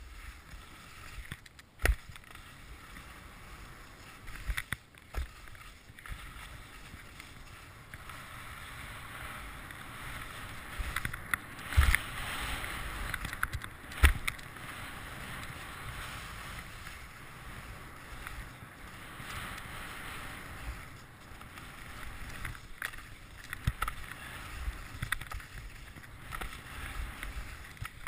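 Skis sliding and scraping over packed snow, a steady swishing that swells and fades, picked up by a GoPro camera riding with the skier. Now and then a sharp knock cuts through it, the loudest two about twelve and fourteen seconds in.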